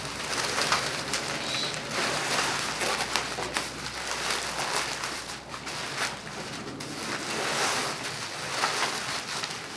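Plastic bubble wrap rustling and crackling as it is pulled off the roll and wound around a cardboard box, with many small crinkles and clicks.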